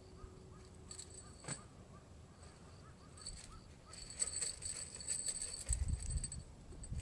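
Light metallic clicking and rattling, a single click about a second and a half in and then a quick clatter of ringing clicks from about three seconds on, with a low gust of wind on the microphone near the end.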